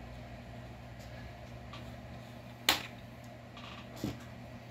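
Plastic top cover of a new Echo CS-4910 chainsaw being unlatched and lifted off: one sharp click a little past halfway, then a lighter knock near the end, over a steady low hum.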